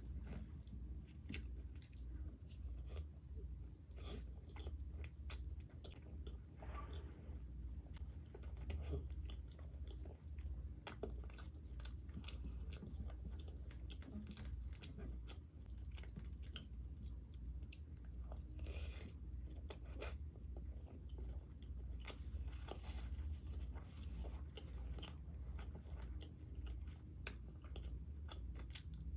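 Close-miked chewing, biting and wet mouth smacks of someone eating spicy mutton curry and mutton liver with luchi, with irregular clicks and smacks throughout over a steady low hum.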